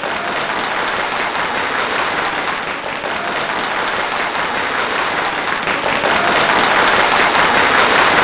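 A steady, loud hiss of noise, growing slightly louder in the second half.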